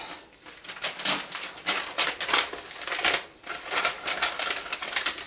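A mailing envelope being torn open and crinkled by hand: an irregular run of crackling rips and paper rustles, loudest about one, two and three seconds in.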